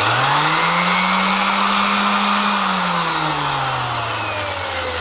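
Hofer Workzone corded random orbital sander running unloaded. The motor spins up to a steady whine in the first second, then is switched off about two and a half seconds in and winds down with falling pitch as the pad coasts.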